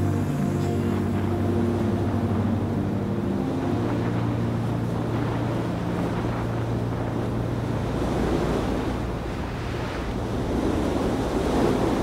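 Wind buffeting the microphone, an even rushing noise that swells near the end, with a low steady drone under the first part.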